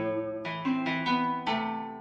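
Instrumental music: a slow melody of plucked string notes, harp-like, each note ringing and fading as the next comes in.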